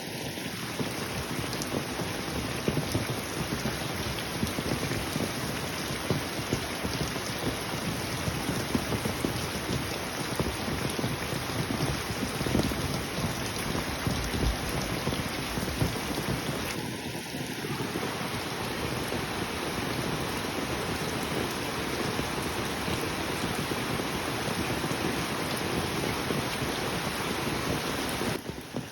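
Steady rain falling: an even hiss made up of countless small drop taps.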